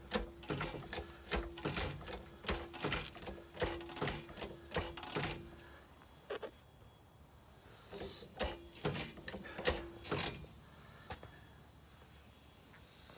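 Car jack being worked to lift the front of a car: quick runs of metallic clicks with a faint steady squeal under them. There are two spells, a longer one at the start and a shorter one about eight seconds in.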